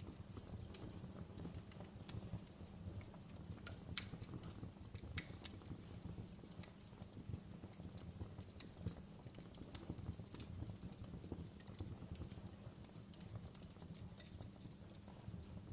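Outdoor wood fire crackling: scattered sharp pops and snaps, the loudest about four seconds in, over a steady low rumble.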